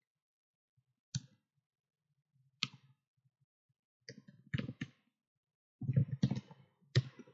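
Computer keyboard keystrokes clicking during typing. There are single clicks at first, then quicker irregular clusters in the second half.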